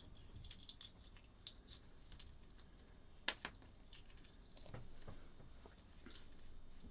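Faint scattered clicks and small crackles of eggshell being picked off a hard-boiled egg by hand, with one sharper click a little past three seconds in.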